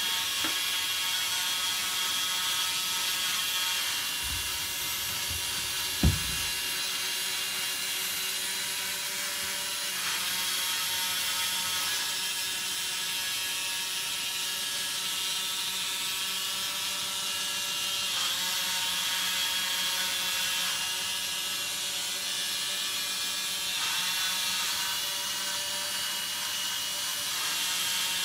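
Small DC motors and plastic gearboxes of a Gakken Digirobot 01 line-drawing robot whining steadily as it drives over paper, the whine shifting in pitch a few times. A single low thump about six seconds in.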